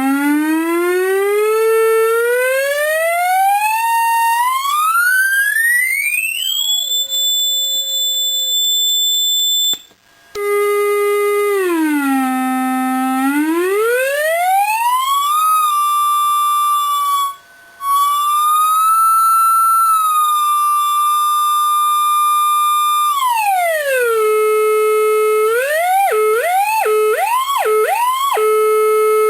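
Homebuilt electronic drone machine's audio oscillator sounding a buzzy, siren-like tone that glides slowly up to a high steady whistle, cuts out briefly, then sweeps down and back up. It drops out again for a moment, and near the end it warbles in several quick upward swoops before holding and starting to fall.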